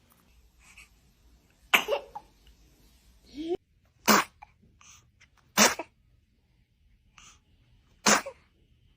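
A baby sneezing, four short sharp sneezes a second or two apart, with a brief rising little squeak of voice just before the second.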